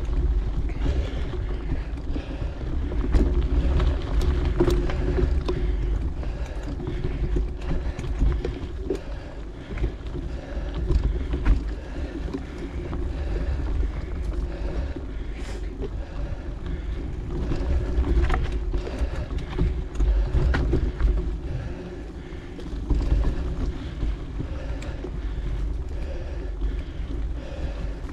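Mountain bike rolling fast along a dirt singletrack: a steady low rumble of wind on the camera microphone, with tyre noise and scattered rattles and clicks from the bike over the rough trail.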